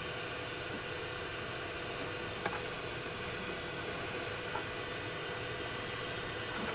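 Steady background hiss with a faint hum, and a couple of faint small clicks from hands handling a wire and its small rubber seal.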